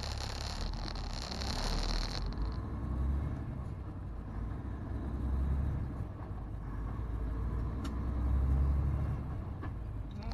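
Truck's diesel engine and road noise heard from inside the cab while driving: a low rumble that swells and eases several times. A higher hiss stops about two seconds in.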